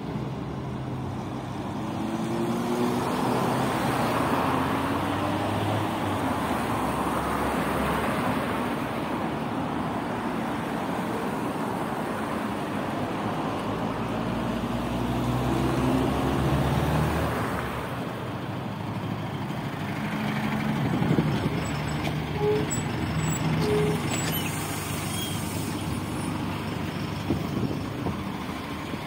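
Road traffic passing: cars and a minibus driving by, engine notes rising and falling, then a PAZ-320414-05 Vector city bus drawing up and stopping, its diesel engine running with a brief hiss of air about three-quarters of the way through.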